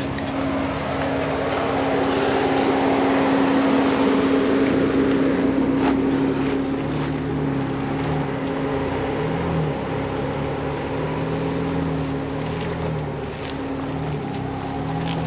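Off-road vehicle crawling along a dirt trail, heard from inside the cab: the engine runs at low revs, its pitch stepping up and down a little, under a steady whine, with a few scattered clicks from the tyres and suspension on the rough ground.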